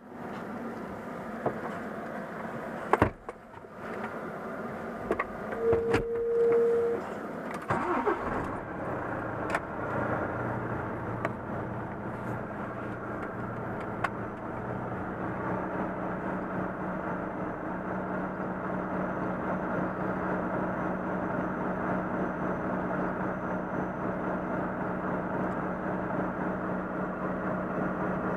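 Volvo FM truck's diesel engine starting about eight seconds in and settling into a steady idle, heard from inside the cab. A short single beep sounds just before the start, and there are a few sharp clicks a few seconds in.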